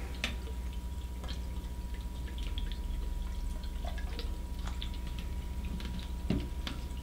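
PC water-cooling pump running in a freshly refilled loop: a steady hum with a thin steady tone, and coolant trickling with scattered light drips.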